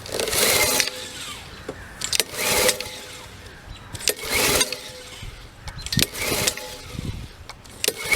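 Honda GCV160 lawn mower engine being pull-started: the recoil starter rope is yanked four times, about two seconds apart, and each pull cranks the engine over briefly without it catching. A sharp click sounds between pulls.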